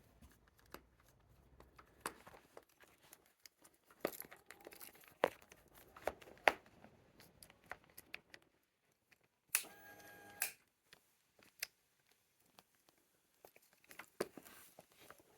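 Faint scattered clicks, taps and rustling of hands working at the motorcycle's ignition key lock, with a short squeaky scrape about ten seconds in.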